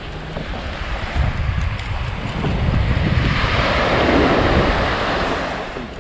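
Surf breaking on a sandy beach, swelling to its loudest about three to five seconds in, with wind buffeting the microphone.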